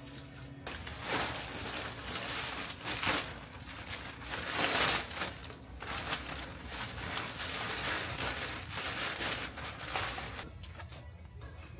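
Aluminium foil crinkling and being crumpled in irregular swells, over faint background music.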